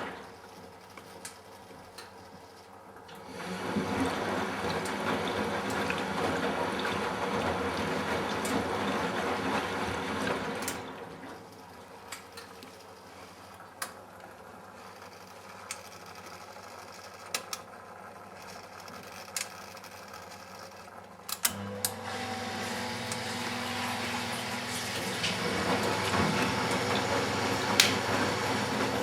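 Matura Autostatic 850 washing machine taking in water: a rush of inflowing water for about seven seconds, a quieter stretch with a few clicks, then water runs again under a steady low machine hum that starts about two-thirds of the way in.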